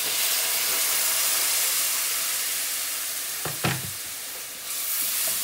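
Water poured into a hot aluminium wok of fried onion and spice masala, hissing and sizzling hard as it hits the pan. The sizzle eases after about three seconds, a short knock sounds, and it swells again near the end.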